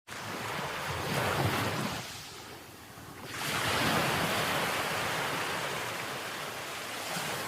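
Sea waves breaking and washing in, the surge building about a second in, easing off briefly, then swelling again and running on evenly.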